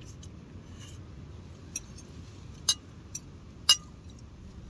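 Four sharp clicks and clinks from cooking gear being handled, the last one the loudest, over a steady low rumble.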